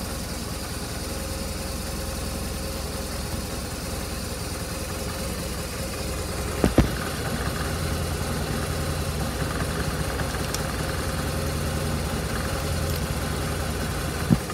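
BMW R1200RT's boxer-twin engine running steadily. Two sharp knocks come close together about halfway through, and another near the end.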